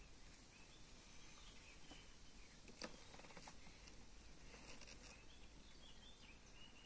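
Near-silent outdoor ambience with faint distant bird chirps and a few soft clicks, one a little more distinct about three seconds in.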